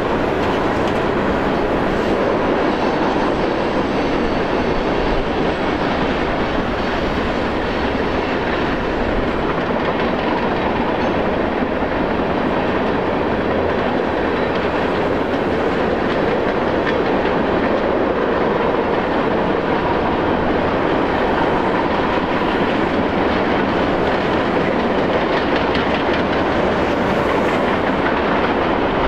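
Cars of a Union Pacific mixed freight train rolling across a steel truss bridge: a steady rolling rumble, with faint wheel clicks near the end.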